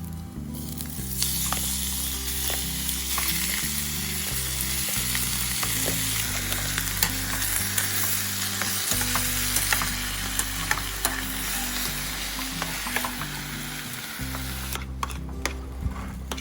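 Chicken with chili and basil stir-frying in a hot pan: a loud, steady sizzle with the taps and scrapes of stirring, starting about a second in and dying away near the end. Background music plays underneath.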